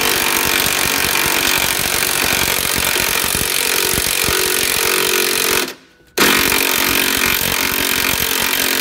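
Cordless impact driver hammering as it undoes a 21 mm rear suspension bolt. It runs in two bursts, a long one and then, after a short pause about six seconds in, a second one.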